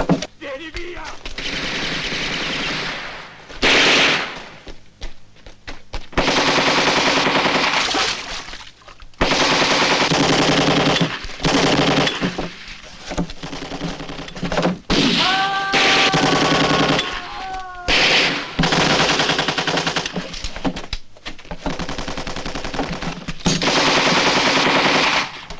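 Automatic weapons firing in long, rapid bursts, each run of shots broken by a short pause before the next burst starts.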